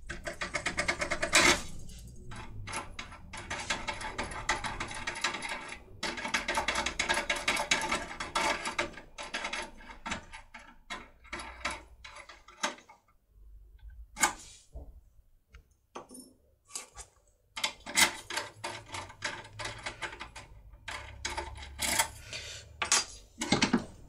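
Foil impression tool being worked in a pin-tumbler euro lock cylinder's keyway: stretches of rapid metallic clicking and rattling, several seconds long, with single sharp clicks between them.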